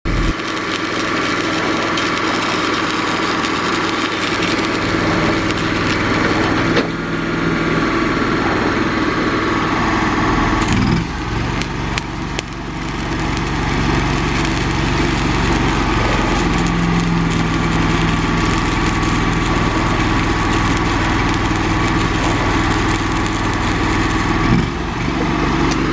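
Engine running steadily under the crackle and hiss of arc welding on a steel gate frame, the engine's pitch shifting briefly about eleven seconds in and again near the end.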